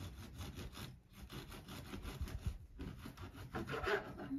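A knife sawing back and forth through a freshly baked whole-wheat loaf: quick rasping strokes, about five a second, with a short pause about a second in and the loudest strokes near the end.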